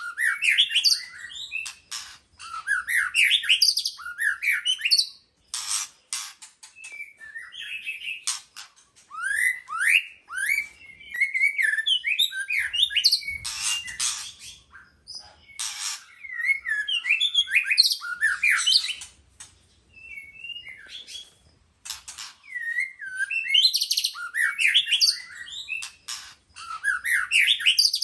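White-rumped shama singing: bouts of rich, varied whistled phrases with quick rising and falling glides, broken by short pauses and mixed with sharp clicks.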